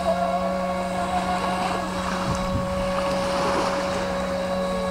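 Electric RC speedboat's brushless motor (Leopard 4074, 2150 kV) running with a steady whine as the boat moves across the water.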